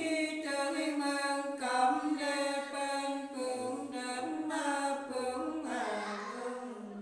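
A woman singing a Nùng folk song unaccompanied, in long held notes with short breaths between them, the last note sliding down and fading near the end.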